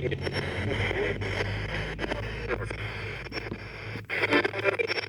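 Moonbox Classic spirit box sweeping through radio stations: choppy static cut up every fraction of a second, with brief snatches of radio voices, over a steady low hum.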